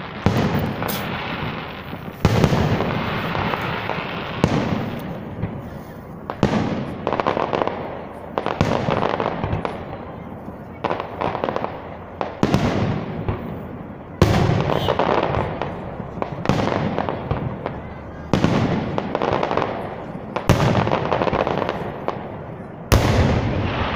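Aerial firework shells of a public fireworks salute bursting overhead: a heavy boom about every two seconds, each followed by a long echoing rumble that fades before the next.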